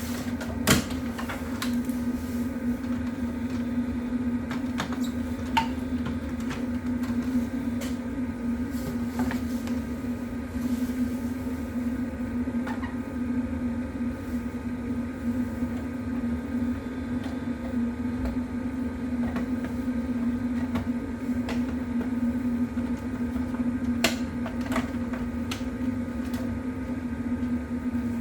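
A steady mechanical hum with several steady tones in it, broken by scattered sharp clicks and taps. The loudest clicks come just under a second in, at about five seconds and again near the end.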